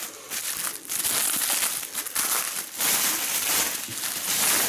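A thin plastic bag crinkling and rustling in irregular swells as hands handle it and unwrap the item inside.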